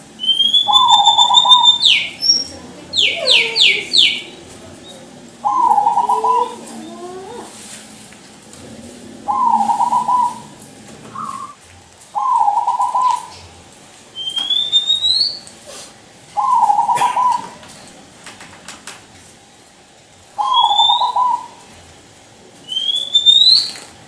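Zebra dove (perkutut) singing, six short cooing phrases each about a second long and three to four seconds apart. Another bird's thin rising whistles and chirps come in between, higher in pitch.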